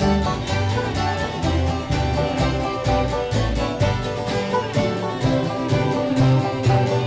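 Bluegrass band playing an instrumental passage: banjo and guitar picking over strong low bass notes.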